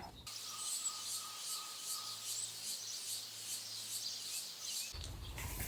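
Faint outdoor ambience with an even series of short, high-pitched chirps, about four a second, over a soft hiss.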